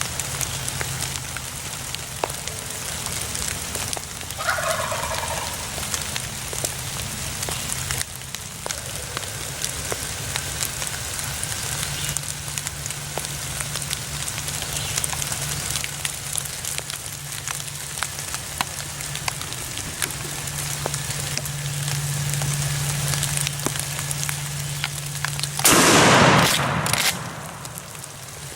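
Steady rain with pattering drops throughout; about four seconds in a wild turkey gobbler gives one gobble, falling in pitch. Near the end a single loud shotgun shot.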